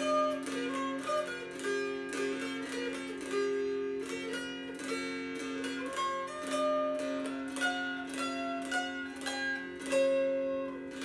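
All black walnut mountain dulcimer playing a tune: a melody picked out over steady drone strings, with notes strummed in a regular rhythm.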